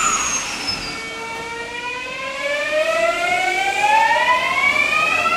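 Electric commuter train pulling away, its inverter-driven traction motors giving a whine of several tones that rises steadily in pitch and levels off near the end. A high tone slides down and fades in the first second.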